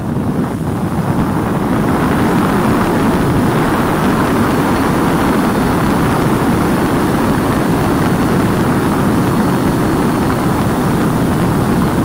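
A 2,400-watt professional dog force dryer blowing a loud, steady rush of air through its hose and flat nozzle, building up to full strength in the first second or so.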